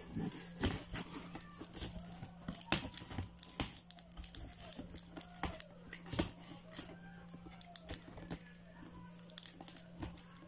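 Plastic wrapping and packing tape on a cardboard box crinkling and tearing as the box is opened by hand, a run of irregular crackles and snaps over a steady low hum.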